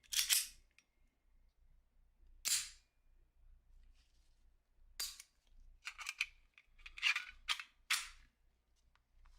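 Sharp metallic clicks and clacks of a Colt M1911 pistol's steel parts being fitted and snapped together during reassembly: one about the start, one at two and a half seconds, then a quicker cluster of five or so from about five to eight seconds.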